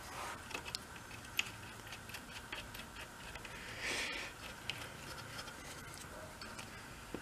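Faint small metallic clicks, ticks and scrapes as the bolts on the end cap of a Warn ATV winch's electric motor are threaded in by hand, with a short rustle about four seconds in.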